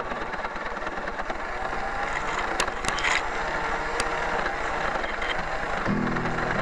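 Small electric motor and gear drive of a radio-controlled scale 4x4 crawler running, a steady mechanical rattle with a few sharp clicks near the middle as it pushes through brush. Background music comes back in near the end.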